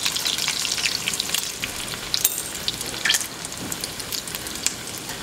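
A rolled chicken flauta frying in hot oil in a skillet: a dense, steady crackling sizzle with scattered sharper pops.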